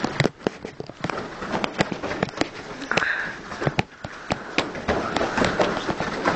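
Karate sparring: a rapid, irregular run of sharp slaps and thuds from bare feet stamping and shuffling on foam mats and punches and kicks landing on the gi and sparring mitts.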